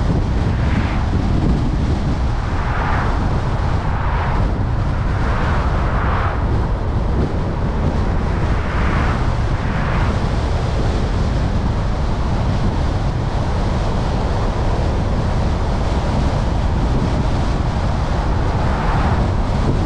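Car driving on a winding mountain highway: steady low road rumble and wind rush, with short swells of rushing noise several times in the first half and once near the end.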